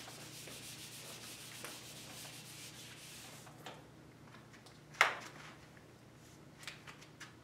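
Dry-erase marker being wiped off a whiteboard, a steady rubbing for about three and a half seconds. About five seconds in comes a single sharp knock, the loudest sound, then a couple of faint clicks.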